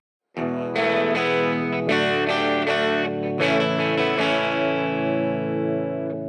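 Background music: a guitar through effects picking ringing notes, starting after a brief silence.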